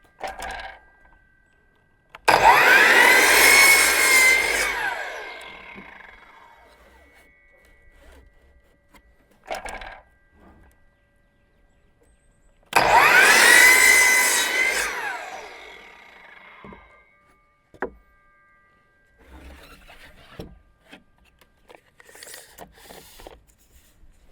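Electric saw crosscutting painted clapboard siding to length, twice. Each cut starts suddenly with the blade's whine, which then falls away over a few seconds as the blade winds down. Short knocks and rustles between the cuts come from handling the boards.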